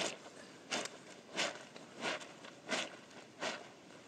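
Wet, soapy clothes being scrubbed by hand against a flat rock: even rubbing strokes, about one every two-thirds of a second.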